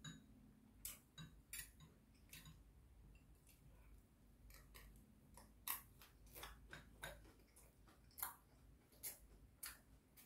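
Faint, irregular clicks of eating: metal chopsticks and a spoon tapping a ceramic bowl, mixed with the mouth sounds of chewing.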